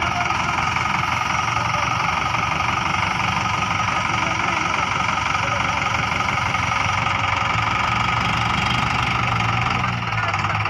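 Sonalika DI 60 tractor's diesel engine running steadily with a regular beat while its hydraulics tip up the loaded trolley.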